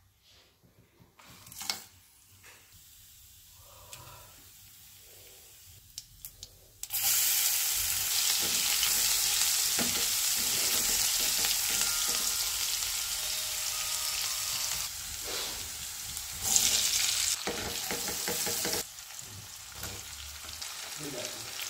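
Hot oil in a kadhai sizzling as food is fried and stirred with a spatula. The first stretch is quiet with a few light clicks as whole spices go in. About seven seconds in, a loud, steady sizzle starts suddenly, flares briefly, then drops to a lower sizzle near the end as onions and potato cubes go into the pan.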